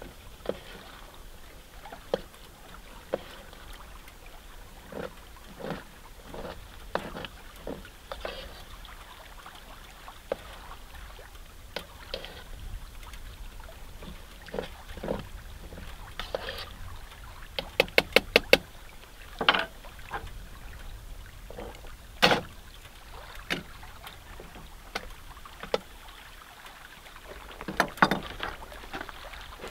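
Irregular clicks and knocks of pots, pans and utensils being handled while cooking, with a quick run of about five sharp clicks a little past halfway and a few louder knocks after it and near the end.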